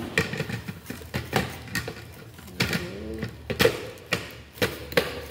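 Hard plastic clicks and knocks as a Tefal blender's jug is handled and fitted onto its motor base: about ten sharp, irregular clicks.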